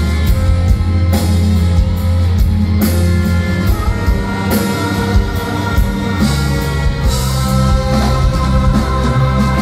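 Live rock band playing: drum kit, electric guitars and bass at full volume, with held notes over a steady beat.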